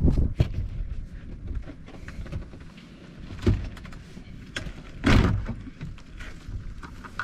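Interior door panel of a 2005 Buick Park Avenue being lifted and worked off the hooks that hold it to the door: scattered knocks and clicks, the loudest about five seconds in.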